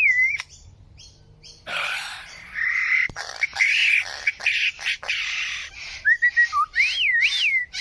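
A bird calling, alternating harsh squawks with clear, wavering whistles that rise and fall. Some of the whistles sound imitated, fitting a bird that mimics many different sounds.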